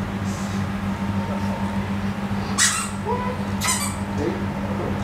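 Two short, high-pitched squeaks about a second apart, over a steady low hum.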